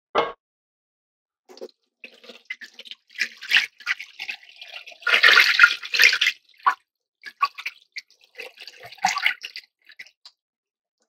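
Kitchen water splashing and pouring in uneven bursts, loudest about five to six seconds in, mixed with scattered clicks and clatter of handling.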